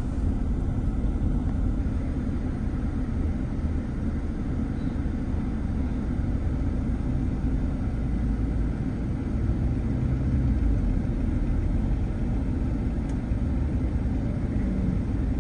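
Steady low rumble of motor vehicle engines, with a fire engine idling close by.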